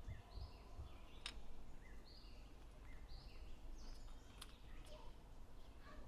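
Faint bird chirps in the background, with two light clicks.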